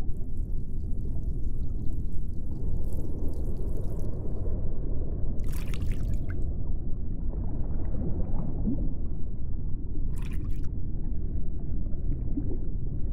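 Ambient sound-design bed: a dense, steady, water-like low rumble, with short fizzing hisses about five and a half and ten seconds in.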